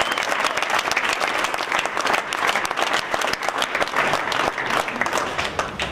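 Audience applauding, thinning slightly near the end.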